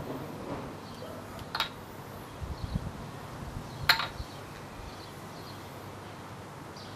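Wooden maple kendama: the ball clacks against the wooden handle piece twice, about two seconds apart, as tricks are landed.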